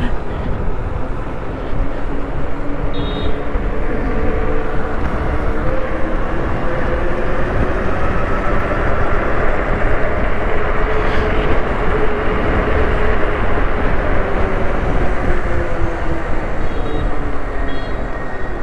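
Wind rushing over the microphone and road noise while riding an electric bike, with the whine of electric motors slowly rising and falling in pitch.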